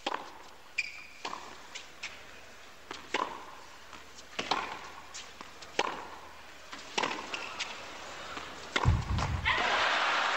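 Tennis rally on a hard court: racket strikes on the ball about once a second, with short shoe squeaks between them. Near the end the point finishes and the crowd starts to applaud.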